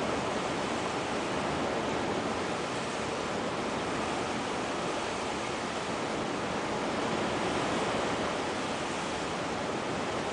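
Heavy rain pouring steadily during a storm, an even hiss with no change in strength.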